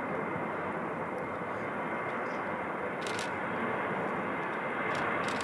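A Boeing 737-800's CFM56-7B turbofans running steadily, a rumble with a faint high whine, as the airliner moves along the runway to line up.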